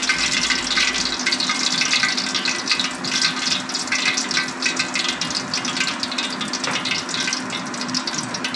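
Hot cooking oil sizzling and crackling in a wok, with oil dripping from a whole fried pompano held just above it; the fish is done. The sizzle eases slightly toward the end over a steady low hum.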